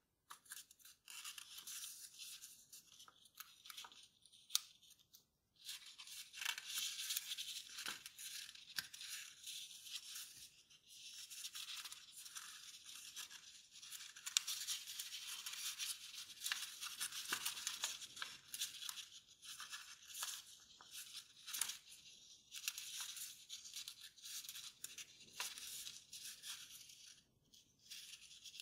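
Kraft paper rustling and crinkling as it is folded and creased by hand, with occasional sharp crackles as folds are pressed flat.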